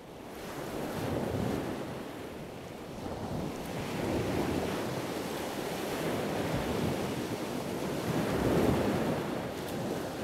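Ocean surf: waves washing in and drawing back, swelling and easing about three times, with a breath of wind. It fades in at the start.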